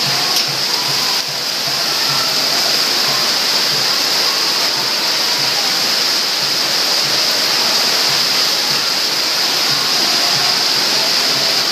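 Heavy rain pouring down in a steady, loud rush.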